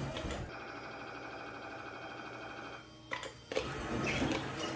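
Claw machine's motor whirring steadily as the claw travels, then a few knocks and clattering about three seconds in as the open claw comes down against the cardboard mask boxes.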